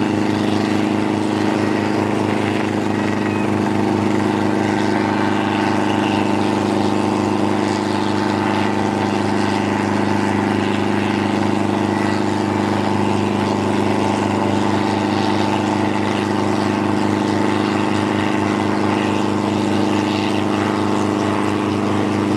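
Small helicopter running steadily near the ground, its engine and turning rotor making an even, unchanging drone with a rapid rotor beat underneath.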